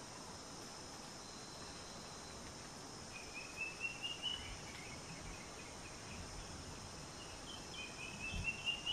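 Bush ambience: a steady high insect drone, with a bird singing runs of short rising chirps about three seconds in and again near the end, and a few faint low thuds.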